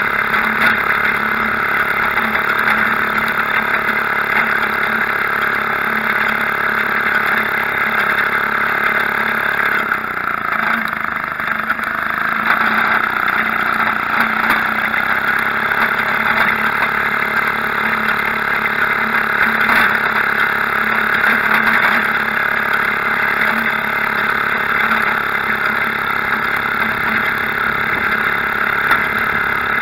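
Maytag Model 72 twin-cylinder two-stroke washing-machine engine running steadily up close on a homemade motor bicycle under way. About ten seconds in its speed sags briefly, then picks back up.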